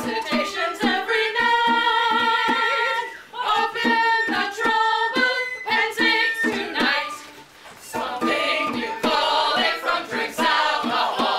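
Mixed group of men and women singing together unaccompanied, in long held notes, with two short breaks between phrases about three and seven seconds in.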